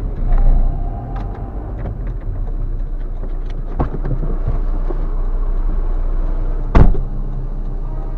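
Car's engine and road rumble heard from inside the cabin as it rolls up and stops, then a single sharp, loud thump about seven seconds in.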